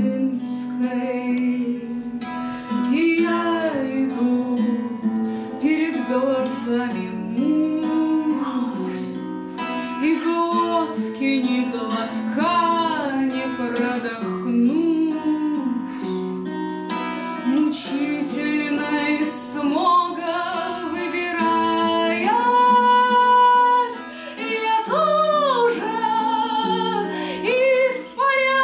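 A woman singing a melody while playing a 12-string acoustic guitar.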